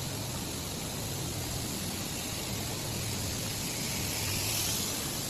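Steady factory floor noise: an even hiss over a low hum, with no distinct strokes or events.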